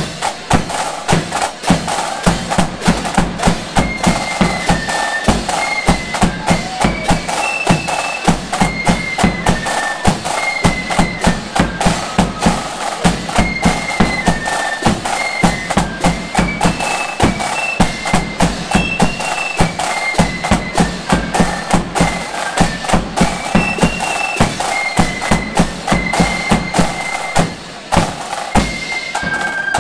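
Marching flute band playing: flutes in unison carry a high melody over rapid snare-drum patterns, a steady bass drum and clashing hand cymbals.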